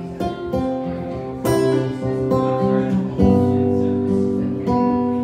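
Acoustic guitar strummed, a chord struck every second or so and left to ring.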